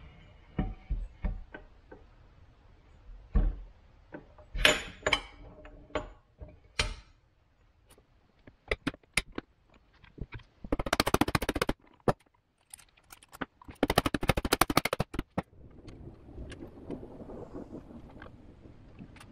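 Metal knocks and clunks as the cast-iron gearbox cover of a riding-mower transmission is lowered and seated on the case, followed by scattered clicks and two bursts of very rapid clicking, each about a second long, near the middle.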